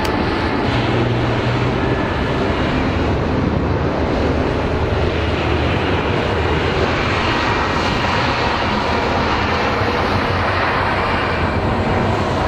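Bell CH-146 Griffon twin-turboshaft helicopter running steadily and loudly, with turbine and rotor noise.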